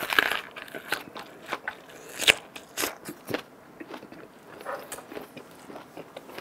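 Close-up chewing of a wrap of grilled pork skin: a run of irregular crunchy bites and wet clicks, one louder crunch a little past two seconds in.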